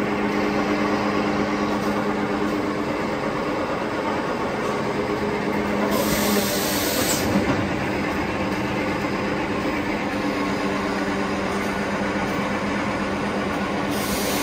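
Automatic stack napkin paper packing machine running: a steady mechanical hum with a low droning tone, and a brief louder hiss about six seconds in.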